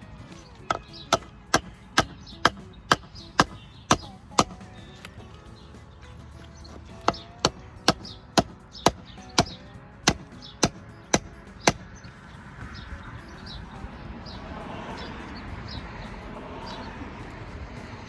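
Hammer strikes on a ceiling fan motor's shaft and bearings, knocking the bearings off. The strikes come in two runs of about ten blows, roughly two a second, with a pause between. A rougher, scraping-like noise follows near the end.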